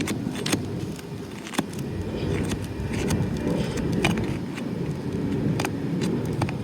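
Scattered sharp clicks and scrapes of a tool being worked under an asphalt shingle to break its seal, over a steady low rumble.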